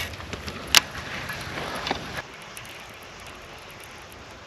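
A lure cast on a spinning rod: rustling handling noise with one sharp click just under a second in. From about two seconds in, only faint steady wind.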